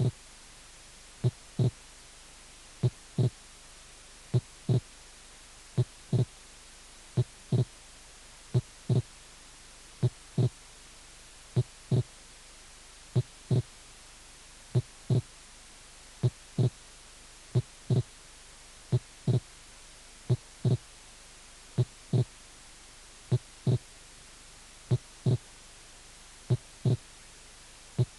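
Heart sounds in pairs, a first and second sound repeating about every one and a half seconds: wide, variable splitting of the second heart sound.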